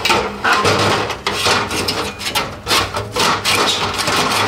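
Metal scraping and rubbing in irregular strokes as the burner assembly is worked out of a gas water heater's burner compartment.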